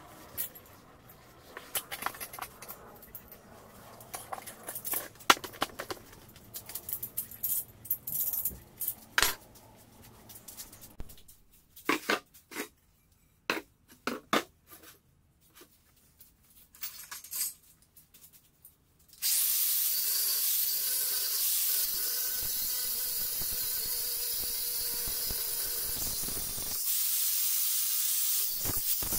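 Scattered clicks and knocks of work pieces being handled, then about two-thirds through an angle grinder with an abrasive disc starts up and runs steadily against an alloy wheel rim, a loud, even, rushing noise.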